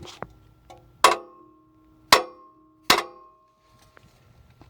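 A hammer striking a steel center punch three times, each blow ringing briefly. The punch is marking the center of a broken bolt's shank in an aluminum engine head, so the bolt can be drilled out.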